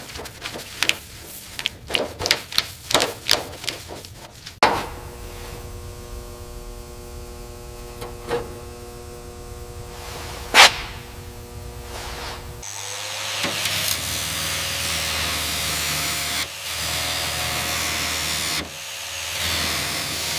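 Workshop tool sounds in three parts: a quick series of sharp knocks and taps, then a machine running with a steady hum and one loud clack about ten seconds in, then a steady hissing power tool for the last several seconds.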